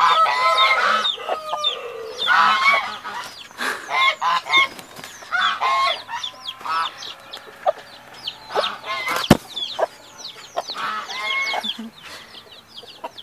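Índio Gigante hens squawking and clucking aggressively as they fight over their chicks, with a single sharp knock about nine seconds in.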